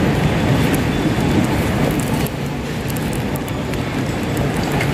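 Steady low rumbling background noise of a large airport terminal hall, with a few faint ticks; it drops slightly a little over two seconds in.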